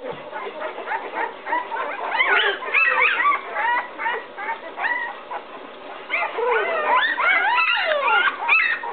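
A litter of 11-day-old Bouvier puppies whining and crying together, many overlapping high cries that rise and fall in pitch, getting busier about two seconds in and again near the end. The pups are distressed because their mother has left the whelping box and they are searching for her.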